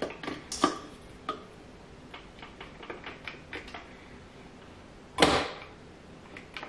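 Light clicks and taps from hands handling a metal stand mixer's head and bowl, with one louder clunk about five seconds in.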